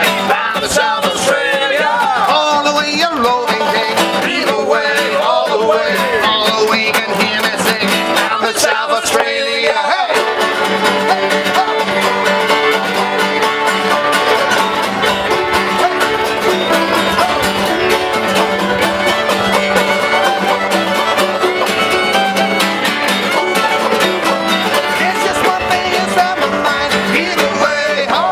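Bluegrass-style music with fiddle, banjo and guitar, with a short break about nine seconds in.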